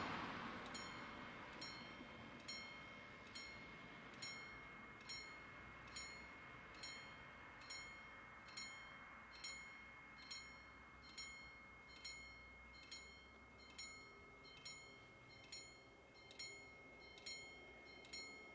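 Level-crossing warning bell striking evenly, a little more than once a second, starting about a second in as the crossing activates for an approaching train. A passing car fades away at the start.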